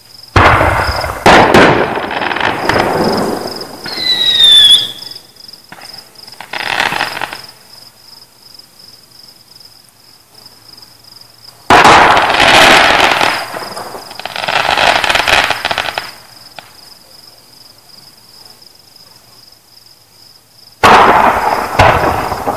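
Fireworks exploding in three loud clusters of bangs with crackling tails: at the start, about halfway through, and near the end. In the lulls, crickets chirp steadily. A short falling whistle sounds about four seconds in.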